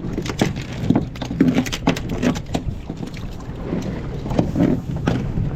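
Irregular knocks and clatter of gear being handled aboard a small fishing boat, over a steady low wind rumble.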